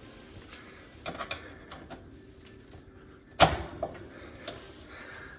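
Metal clicks and scraping as a flat screwdriver works an oven door's hinge lock, with one sharp clack about three and a half seconds in.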